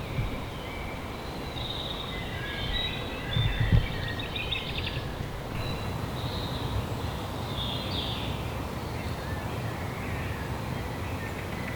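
Woodland birds calling now and then, with short harsh calls, over a steady low background rumble. A couple of low thumps come about three and a half seconds in.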